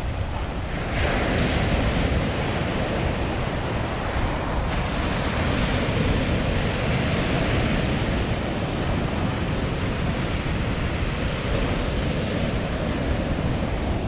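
Sea surf: small waves breaking and washing up over a pebble beach in a continuous hiss. One wave breaks louder about a second in, and its wash lasts for a few seconds.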